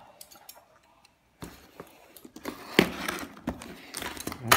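Handling noise on a wooden tabletop: nearly quiet at first, then scattered light clicks and a few sharp taps as scissors and a plastic-wrapped parcel are handled to cut the package open.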